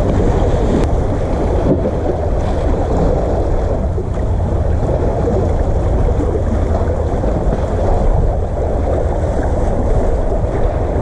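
Wind buffeting the microphone in a steady low rumble, over sea water washing and lapping among the concrete tetrapods of a breakwater.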